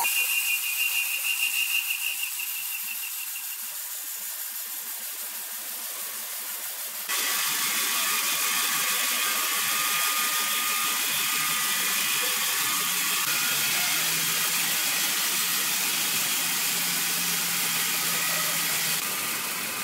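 Large horizontal band sawmill cutting lengthwise through a big log: a steady high hiss of the band blade in the wood, with a pulsing high whine over the first few seconds. The sound steps up abruptly and gets louder about seven seconds in.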